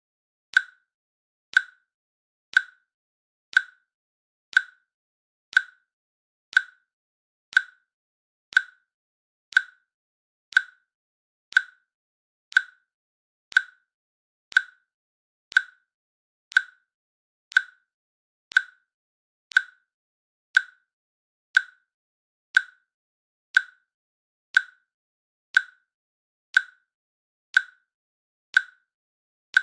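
Countdown timer's click sound effect ticking once a second: a short, sharp click at a perfectly even pace, marking each second of the countdown.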